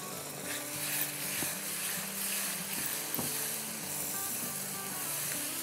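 Onion, garlic and spice masala sizzling steadily in an oiled pan as tomato puree is stirred into it with a silicone spatula.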